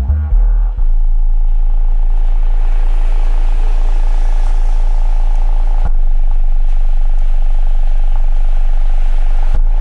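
Subwoofer driven by a homemade SOCL power amplifier through a 4558 subwoofer filter, playing a loud, steady deep bass drone after a few bass-heavy music beats in the first second.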